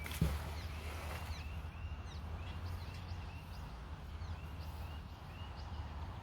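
A single thump about a quarter second in, then small birds chirping with short repeated calls over a steady low rumble.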